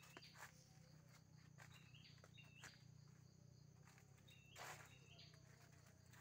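Faint footsteps on dry fallen leaves, irregular soft crunches with a slightly louder step about four and a half seconds in.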